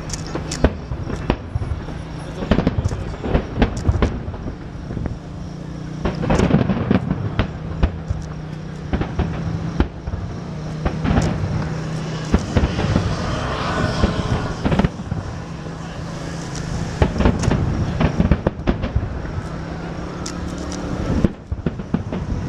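An aerial fireworks display going off: a dense run of bangs and sharp cracks, with stretches of thick crackle from the bursting shells.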